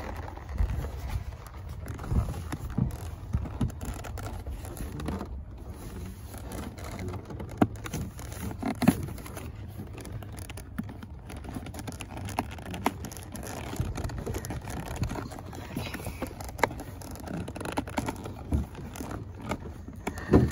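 Hands forcing a stirrup leather through a western saddle's fender and skirt: leather rubbing and scraping, with scattered small knocks and clicks over a low rumble.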